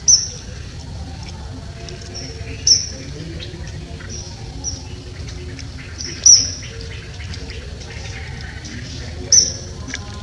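A bird's short, sharp, high chirp, heard four times at uneven intervals a few seconds apart, each dipping slightly in pitch, over a steady low background rumble.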